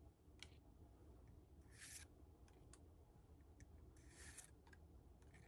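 Faint swishes of Pokémon trading cards sliding against one another as they are flipped through one by one in the hand: two short swishes about two seconds apart, with a few light ticks between.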